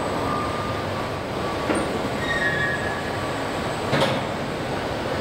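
Car assembly-line machinery: a steady mechanical din with faint high whines, broken by two sharp metallic knocks, one a little under two seconds in and a louder one about four seconds in.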